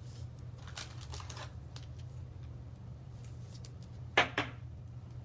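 Faint handling of trading cards and plastic card sleeves, with light rustles and ticks and two sharp clicks close together a little after four seconds, over a steady low hum.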